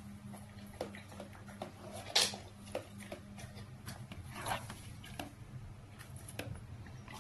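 Chocolate Labrador sniffing and eating peas off the floor: irregular short snuffles and mouth noises, with two louder ones about two and four and a half seconds in.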